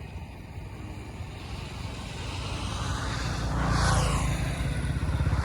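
A motor vehicle engine running, growing louder and passing close by about four seconds in.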